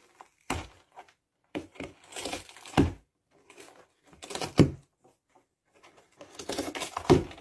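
Cardboard box rustling, scraping and crunching as a cat moves about inside it and works at the torn rim, in several short bursts with silent gaps between.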